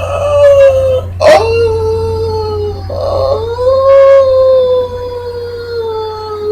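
A person's voice howling in long, drawn-out held notes, like a dog's howl. The pitch sags and rises slowly, and the howl is broken briefly twice, about a second and about three seconds in.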